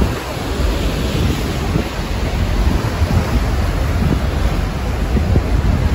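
Deep, steady rush of the Horseshoe Falls and the churning river water below it, with wind buffeting the microphone.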